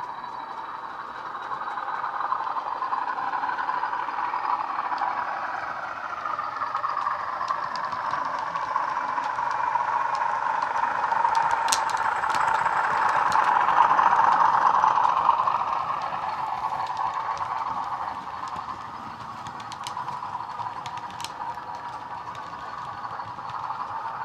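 Bachmann Class 40 model locomotive's Legomanbiffo DCC sound decoder playing a Class 40 diesel engine sound through a pair of 27mm round speakers. It grows louder as the model approaches, peaks about halfway through as it passes, then fades as it runs away. A few sharp clicks stand out along the way.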